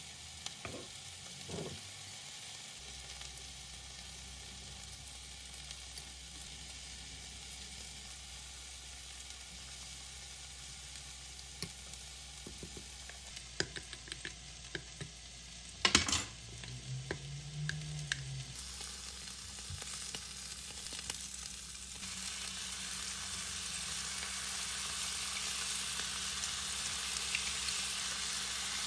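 Yakitori skewers of chicken and leek sizzling in a frying pan, the sizzle growing louder about two-thirds of the way through. About halfway there is one sharp clink of a metal spoon against a small glass of sauce.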